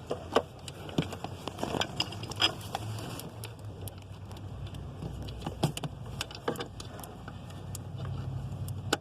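Scattered light clicks and knocks of hands handling the recharge hose and its coupler at the AC service port, over a steady low wind rumble on the microphone.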